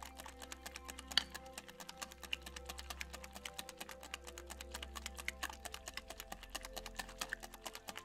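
Whisk beating batter in a glass bowl: a rapid, even run of light clicks and taps, over soft background music.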